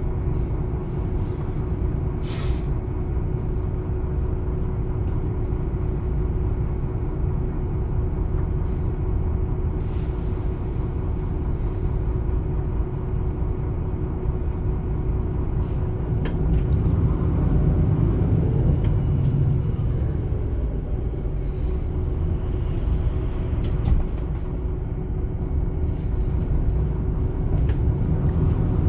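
MAN Lion's City A21 articulated city bus with ZF EcoLife six-speed automatic, engine and driveline running on the move. There is a short air hiss about two seconds in. From about sixteen seconds the engine gets louder and rises in pitch as the bus pulls away or accelerates.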